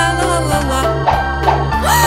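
Cartoon background music with a steady bass line under a melody. In the second half, several pitches glide up and back down.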